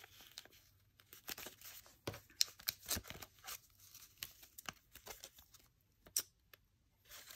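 Paper banknotes counted by hand, flicked from one hand to the other: a faint run of soft snaps and rustles, pausing briefly near the end.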